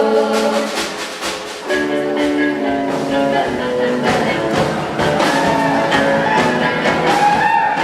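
A rock band playing live, with drum hits under sustained pitched notes and no sung words.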